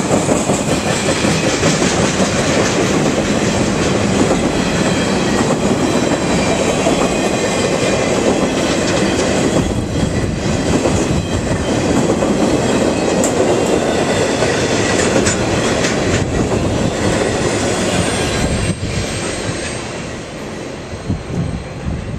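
Cars of a CSX intermodal freight train rolling past at speed, the steel wheels clattering on the rails. The last car goes by about 19 seconds in and the noise drops away and fades.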